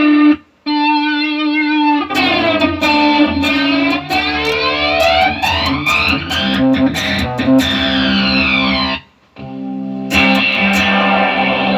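Electric guitar played through a Fractal Audio FM3 amp-modeling effects processor during a sound test after its power supply board was replaced. It plays sustained, effected notes and chords, and the tone sweeps up and down through the middle. The sound cuts out abruptly twice, just after the start and about three-quarters of the way through.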